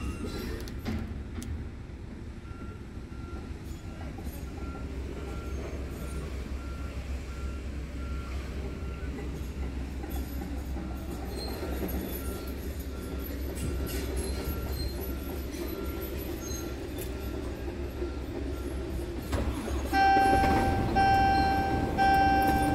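Scania P truck's diesel engine idling steadily, heard from inside the cab, with a faint beep repeating about every two-thirds of a second. About twenty seconds in, a loud warning beep starts, sounding in long pulses with short gaps.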